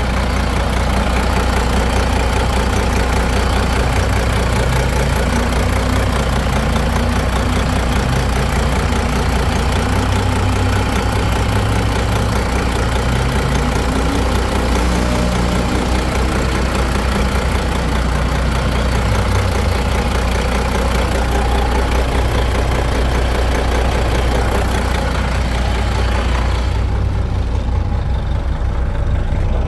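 Detroit Series 60 12.7-litre diesel engine of a 1989 Kenworth W900 idling steadily, heard close up in the engine bay. The engine has some blow-by. The sound turns duller near the end.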